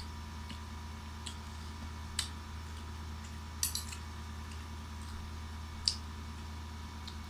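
Spoon and fork clinking against a plate in a few short, sharp ticks, two close together near the middle, over a steady low hum.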